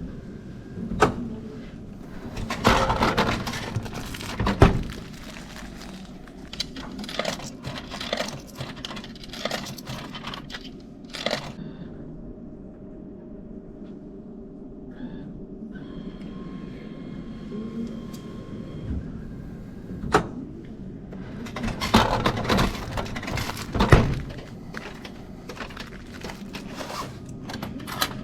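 Vending machine purchases: clicks, clatter and several sharp thunks as items drop into the delivery tray and are handled, with quieter stretches in between.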